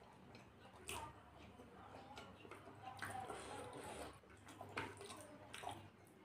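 Faint eating sounds: fingers squishing and mixing rice in gravy on a paper plate, with a few soft clicks.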